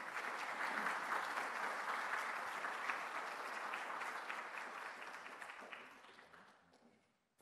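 Audience applauding: a dense clapping of many hands that fades away about six seconds in.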